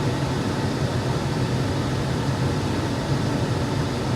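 Combine harvester running steadily, heard from inside its cab as an even mechanical hum.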